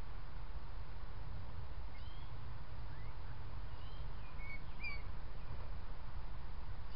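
Steady low rumble of trail-camera microphone noise, with scattered faint short high chirps from birds, a few clearer ones about four to five seconds in.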